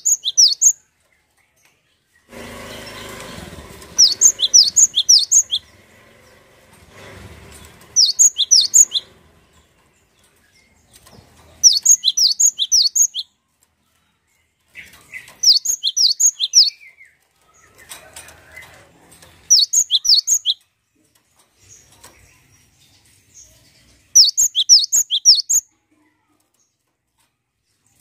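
Cinereous tit (gelatik batu) singing in short phrases of rapid, high, repeated chirping notes, about seven phrases each a second or so long with gaps of a few seconds between. A brief rustling noise comes between the first two phrases.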